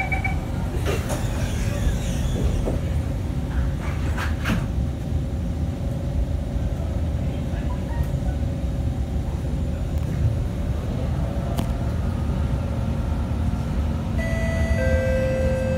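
Interior of a Kawasaki Heavy Industries C151 metro train running through a tunnel: a steady low rumble with a few brief knocks in the first seconds. Near the end a steady high whine sets in as the train runs alongside a station platform.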